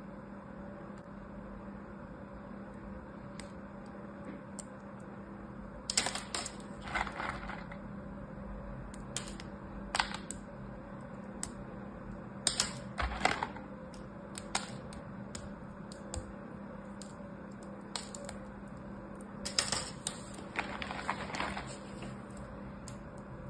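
Thin strips of carved soap crackling and clicking as fingers bend and break them over a plastic box of soap pieces, in a few short clusters of crisp clicks over a faint steady hum.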